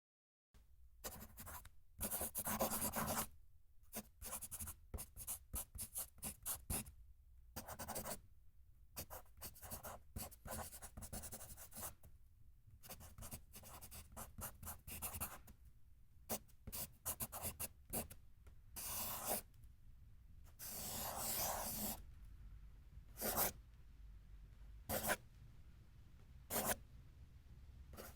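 Pencil writing and drawing on paper: a run of short, scratchy strokes of varying length, with a longer continuous scratch of shading or a long line about three quarters of the way through.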